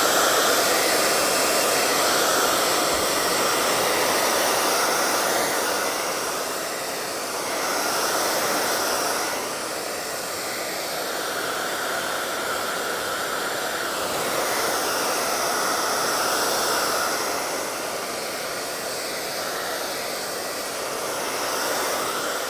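Handheld hair dryer blowing steadily, drying a freshly painted sealing coat on a wooden box. Its pitch and loudness shift a little as it is moved over the surface.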